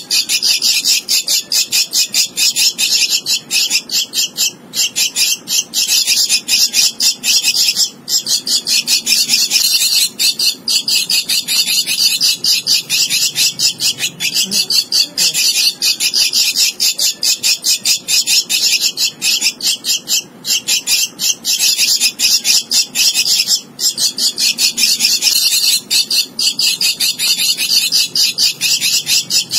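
Javan myna nestling giving harsh, rapid, rasping begging calls in a near-continuous stream, broken by brief pauses every few seconds: a hand-reared chick begging for food with its bill gaping.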